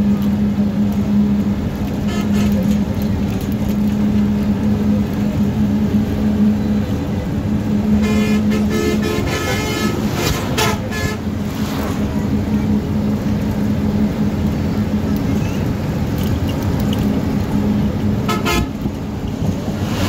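Steady engine and road noise heard from inside a moving vehicle, with a strong low drone. Vehicle horns sound for a few seconds from about eight seconds in, and once briefly near the end.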